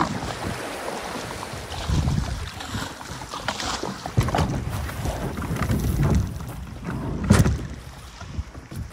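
Sea water washing over a pebble beach right at the microphone, with wind buffeting the microphone; a sharp knock about seven seconds in.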